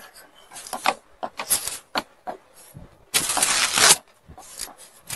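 Rustling and short clicks of hands and clothing being handled during a chiropractic adjustment, with a louder burst of rustling that lasts about a second just past the middle.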